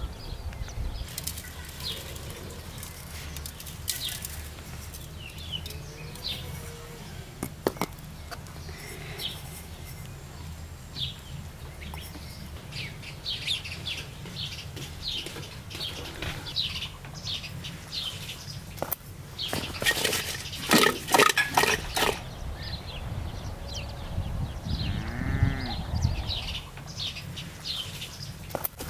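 Village outdoor ambience: small birds chirping on and off, a drawn-out bleat-like call from a farm animal about 25 seconds in, and a quick run of loud knocks about 21 seconds in.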